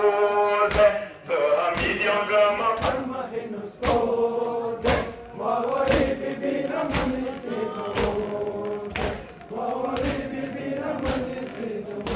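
Men chanting a Muharram mourning chant in held, drawn-out notes, with sharp slaps of chest-beating (matam) struck together about once a second.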